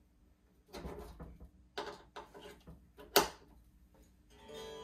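Peavey Standard Mark III amplifier putting out scratchy crackles and a sharp, loud pop about three seconds in while its controls are worked. Near the end a guitar chord starts ringing out through the amp and sustains.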